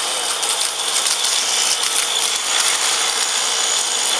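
Electric paste milling machine (colloid mill) grinding coffee beans: a dense, continuous rattling crackle of beans being crushed over a steady motor whine, as the beans are tipped into the stainless-steel hopper.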